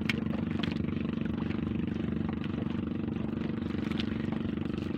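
Outrigger banca's small inboard engine running at a steady drone, with a few faint clicks over it.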